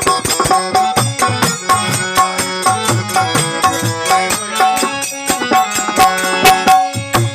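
Instrumental interlude of a live Hindi devotional bhajan: hand drums in the tabla style keep a quick, even beat under a melody of held notes.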